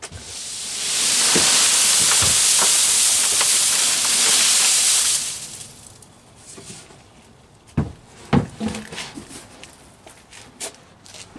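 Dry fallen leaves being tipped into a plastic wheelie bin: a loud, steady rustling hiss that swells in, holds for about five seconds and fades. Then a few scattered knocks and clicks, the loudest about eight seconds in, as the emptied container knocks against the bin.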